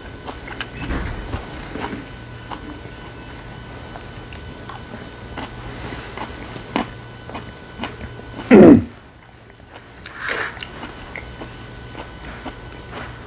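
A person eating at close range: chewing, with scattered light clicks of chopsticks against dishes and food containers. About two-thirds through comes one loud, short, low sound, the loudest moment.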